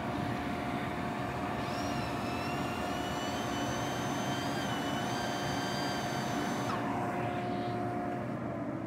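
ClearVue cyclone dust collector running, its air rushing hard into a 4-inch flex hose at the table saw's dust port, about 5,600 feet per minute, over a steady hum. A high whistle joins in about two seconds in and stops near seven seconds in.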